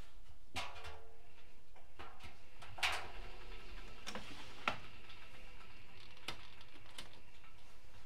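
Several sharp clicks and knocks, the loudest about three seconds in, as the last laundry is taken out of the drum of a Bosch Exclusiv Maxx Comfort WFR160A front-loading washing machine and its detergent drawer is pulled open.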